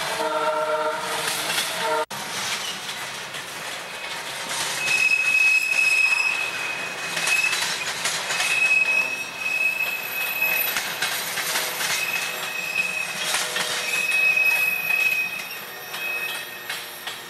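Freight cars rolling past on yard track with a steady rumble and clatter. In the first two seconds a chord of lower steady tones sounds and cuts off abruptly. From about five seconds in, a high, thin steel-wheel squeal comes and goes again and again as the hopper cars pass.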